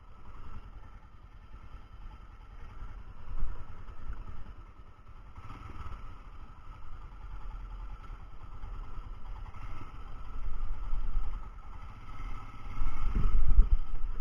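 Royal Enfield Himalayan's single-cylinder engine running as the motorcycle rides slowly over a rough, rocky dirt trail, with uneven low rumbling. The rumble swells louder twice near the end.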